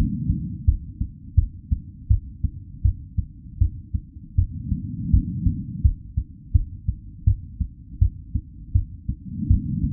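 Real human heartbeat at a normal resting rate: steady, muffled lub-dub double thumps, about 80 beats a minute, over a low rushing background.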